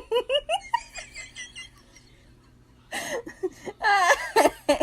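People laughing: a quick run of short giggles, then louder, fuller laughter from about three seconds in.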